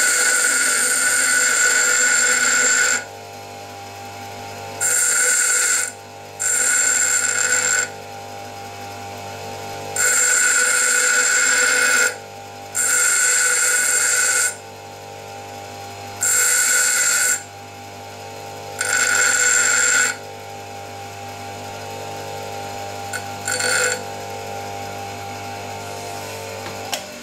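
Metabo bench grinder running with a steady hum, while a two-flute endmill is pressed to the wheel again and again in about eight loud, hissing grinding passes of one to three seconds each. The passes grind relief on the back of the endmill's hand-ground radius cutting edges.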